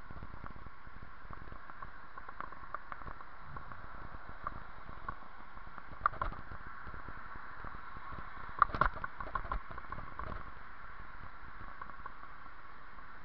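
Bicycle rolling along a paved path: a steady hiss of wind and road noise, with sharp rattles over bumps about six seconds in and again around nine seconds in, the second cluster the loudest.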